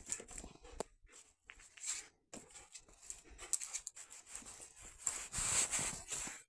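A shepherd dog and a small red dog play-fighting: scuffling and breathy noises in irregular bursts with scattered sharp clicks, loudest for about a second near the end.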